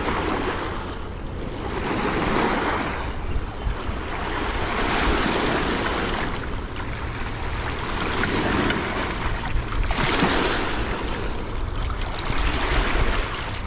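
River water washing onto a rocky shore in swells every two to three seconds, with wind buffeting the microphone in a low rumble.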